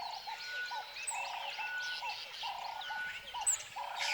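Wildlife ambience: many birds chirping, over a lower call that repeats roughly every second.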